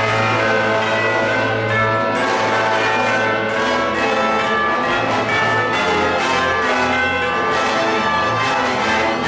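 Live orchestra playing a dense passage of many ringing, overlapping notes over a held low bass note, which moves to a new pitch about a third of the way through, with bell-like tuned percussion prominent.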